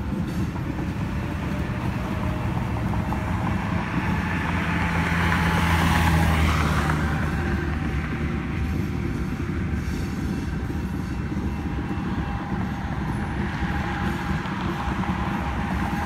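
A Union Pacific coal train's hopper cars rolling steadily past with a low rumble and wheel clatter, under a faint steady wheel squeal. About four seconds in, a road vehicle passes close by, swelling to its loudest near six seconds and then fading.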